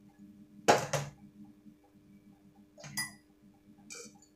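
Metal knocks and clinks of kitchen tongs against an aluminium cooking pot on a gas stove: two sharp knocks close together about a second in, another near three seconds, and a fainter one near the end.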